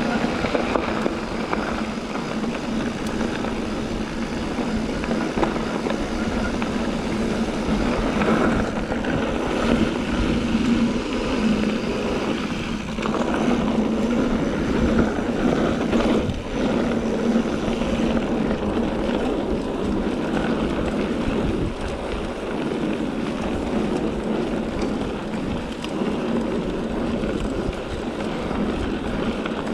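Steady wind rush buffeting an action camera's microphone as a mountain bike rides fast downhill on a dirt and gravel trail, mixed with the rumble and rattle of the tyres and bike over the rough surface.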